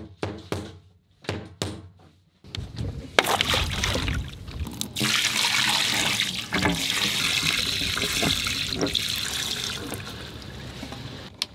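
A few light knocks and clicks, then, from about two and a half seconds in, a steady stream of water poured from a bucket into a sailboat's deck waste fitting, splashing down into the holding tank. The pour eases off slightly near the end.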